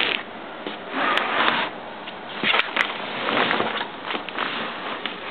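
Handling noise: uneven rustling and scraping with a few sharp clicks, from the camera and the typewriter being moved about by hand.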